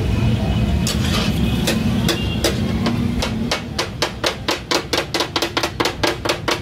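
Heavy metal chopping blades striking a flat steel griddle, chopping tomatoes and onions: the clatter that gives taka tak its name. A few separate strikes come first, then from about halfway a fast, even chopping of around five or six strokes a second, over a low rumble that fades out.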